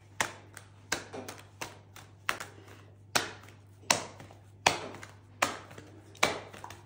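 Soft yeast pizza dough slapped from hand to hand as it is stretched thin, a sharp slap about every three-quarters of a second.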